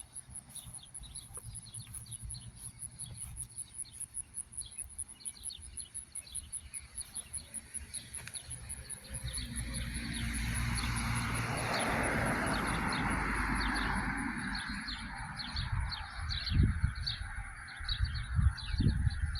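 Small birds chirping over a steady, fast-pulsing high insect trill, while a vehicle passes on the road, swelling and fading through the middle. Low thumps come near the end.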